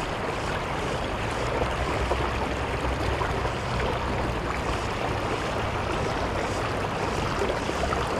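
Creek water rushing steadily over rocks, an even unbroken wash.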